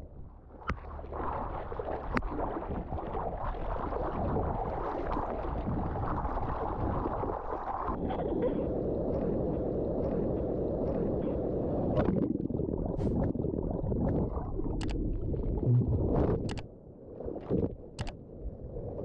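Rushing sea water and wind on the microphone, with a few sharp knocks near the end.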